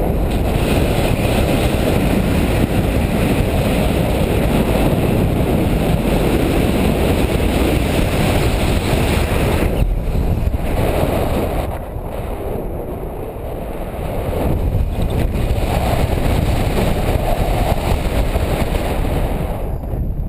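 Airflow buffeting a GoPro's microphone during a tandem paraglider flight: a loud, rough, steady rumble of wind that eases for a couple of seconds about two-thirds of the way through, then picks up again.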